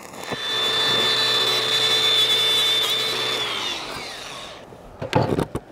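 Electric angle grinder spinning at a steady pitch for about three seconds, then winding down after it is switched off, between stick-weld passes. A few sharp knocks of handling follow near the end.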